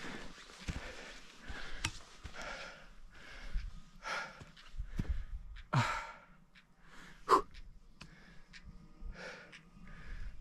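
A hiker breathing hard on a steep mountain climb, with the low thuds of footsteps, and one sharp click about seven seconds in.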